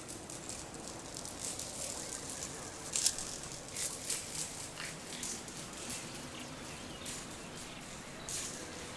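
Soft, irregular close-up rustling and light shaking sounds, a few short crisp bursts every second or so, over a faint steady background ambience.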